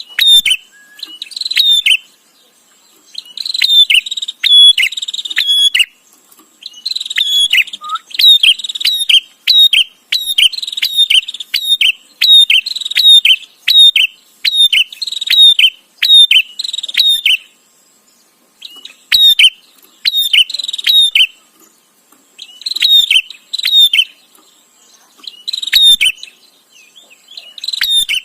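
Prinia (prenjak) chattering: bouts of rapid, repeated sharp notes, each lasting a few seconds, with short pauses between.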